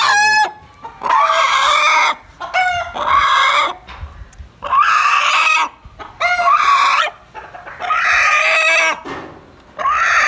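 A black chicken held down by hands giving loud, repeated squawking calls, about seven in a row, each about a second long with short pauses between.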